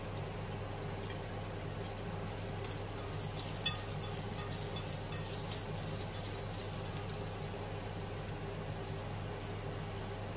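Sliced onion and garlic sizzling steadily in hot oil in a non-stick frying pan while being stirred, with a low steady hum underneath. A single sharp click about three and a half seconds in.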